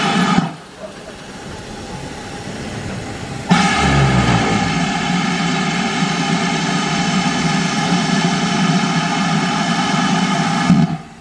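Great Western tank locomotive 5199 at the platform: a steady, loud, pitched drone from the engine. It cuts off sharply about half a second in and comes back suddenly at about three and a half seconds with a low thud, then stops again near the end.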